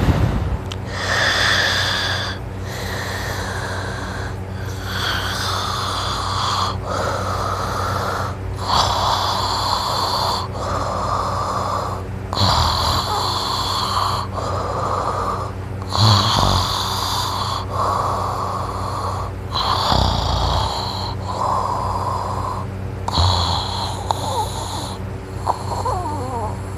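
A sleeping person snoring loudly and rhythmically, one rasping snore about every two seconds. A steady low hum runs underneath.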